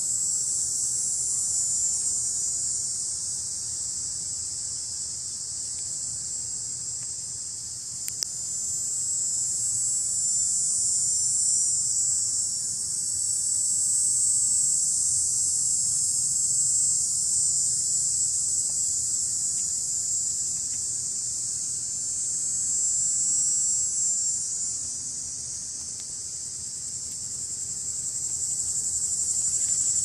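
Continuous high-pitched chorus of singing insects in a garden, gently swelling and fading, with a single faint click about eight seconds in.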